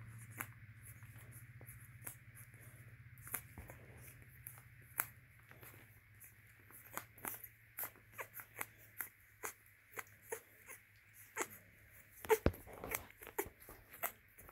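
Two-week-old boxer puppies nursing: soft wet suckling and smacking clicks, a few a second and busier in the second half, with one louder click near the end. A low steady hum fades out in the first half.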